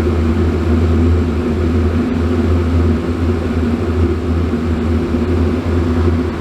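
Dometic RV furnace running with its burner lit and blower fan humming steadily, over a constant wash of highway traffic noise.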